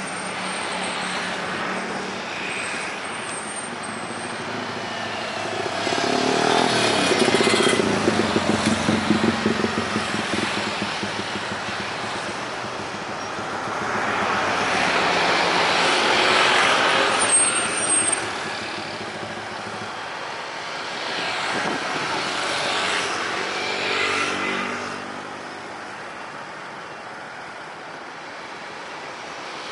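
Road traffic passing close by: three vehicles go past in turn, each a swell of engine and tyre noise that rises and fades over a few seconds.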